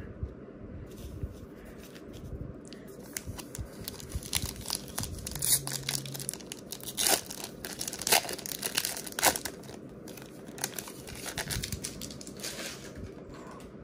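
Foil wrapper of a Topps Stadium Club trading card pack being torn open and crinkled, a run of uneven rips and crackles with the sharpest ones between about five and ten seconds in.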